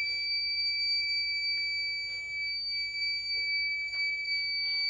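Arduino-driven buzzer sounding one continuous, steady, high-pitched tone. It is the rain alarm: water on the rain sensor's plate has pulled the sensor reading below the 1000 threshold set in the code.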